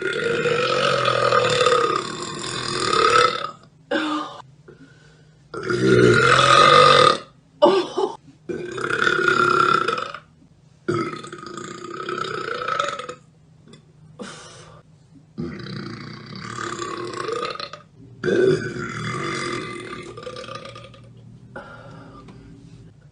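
Women burping: a string of about six long, loud burps, each lasting one to three seconds, with a few short burps between them.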